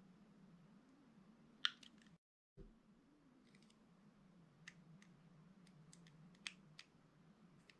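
A few faint, sharp clicks from a knife cutting a soft bar of soap, spread out with long quiet gaps, over a low steady hum. About two seconds in the sound drops out completely for a moment.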